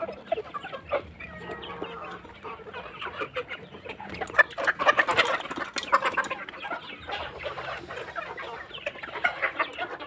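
A flock of laying hens clucking around their feed, with many short calls overlapping.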